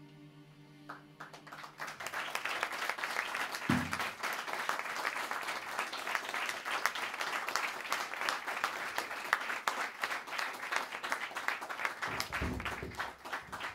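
The band's last chord rings out and dies away, then the audience applauds, a dense clapping that thins out near the end. A single low thud comes about four seconds in.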